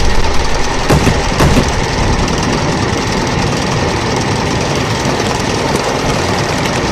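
Steady, loud mechanical rumble, with two sharp knocks about a second in.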